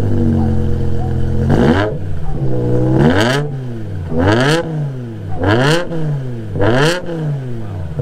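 Straight-piped BMW M5's S85 V10 idling, then blipped five times, each rev rising sharply and dropping back to idle about once a second. The straight pipes make it loud.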